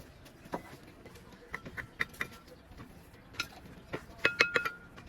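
A mason's steel trowel tapping and clinking irregularly against masonry, some strikes ringing briefly, with a quick cluster of loud clinks a little past four seconds in.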